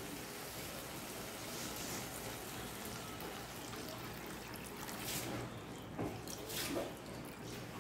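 Water poured steadily into a frying pan of fried potatoes and spiced tomato-onion masala, adding the gravy liquid for a fish curry. About five seconds in it gives way to a few scrapes and knocks of a spatula stirring the pan.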